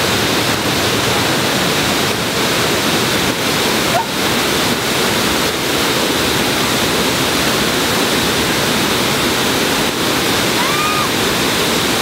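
Water pouring down a waterfall: a loud, steady rush.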